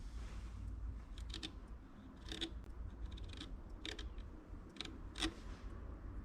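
Handling of hand tools or parts during repair work: a handful of short, sharp clicks and scrapes spread over several seconds, over a low rumble.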